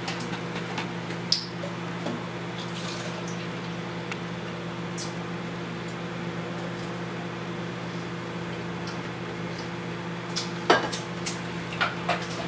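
A steady electrical hum from a kitchen appliance, made of several low fixed tones. A few light clinks and knocks of a plastic cup and juice carton on the counter come through it, one about a second in and a cluster near the end.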